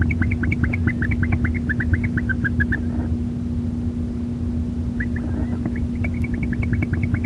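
Barn owl in a nest box giving a rapid series of short, high chittering notes, about six a second, which stop about three seconds in and start again about two seconds later, the male's call to his mate to come into the box. A steady low hum runs underneath.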